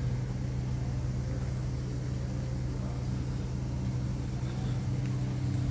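A steady low machine hum holding an even pitch throughout.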